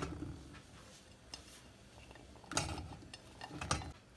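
Raw pumpkin cubes pushed off a plate by hand and dropping into a steel pot, giving a few short clatters: one at the start, one about two and a half seconds in and one near the end.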